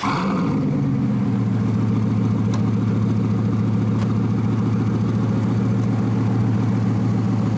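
Bugatti Veyron's quad-turbo W16 engine idling, a steady low note that holds at an even level.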